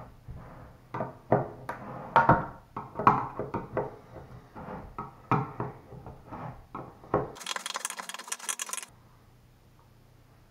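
Metal lid of a gallon paint can being pried open with a hand tool: a run of sharp metal clicks and knocks as the tool works around the rim. About seven seconds in, a hiss lasts for about a second and a half.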